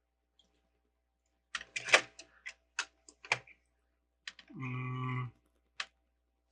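Plastic LEGO bricks clicking and tapping as pieces are handled and pressed together, a quick cluster of sharp clicks followed by a few single ones. Near the end there is a brief low steady hum.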